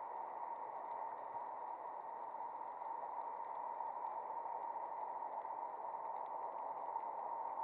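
Underwater ambience heard through a camera's waterproof housing: a steady, muffled hiss with a faint steady tone under it and a few tiny scattered clicks.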